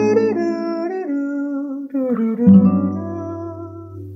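Guitar playing the song's intro: a chord rings on, then a new chord is struck about two seconds in and left to ring.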